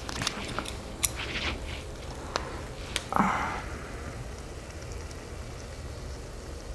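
Pork riblets sizzling faintly on an electric tabletop grill, a steady hiss, with several sharp clicks of chopsticks against a plastic bowl in the first three seconds and a brief soft burst about three seconds in.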